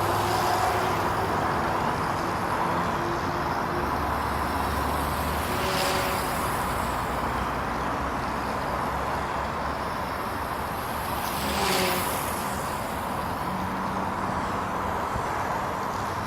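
Dromida Vista quadcopter's electric motors and propellers buzzing steadily, with wind noise on the microphone. Two brief swells of noise come about six and twelve seconds in.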